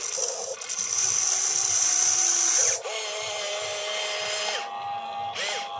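Small electric motors and gearboxes of an RC excavator whining as the boom and bucket move through the dirt. A high steady whine drops to a lower one about two and a half seconds in, and the pitch glides up and down as each motion starts and stops.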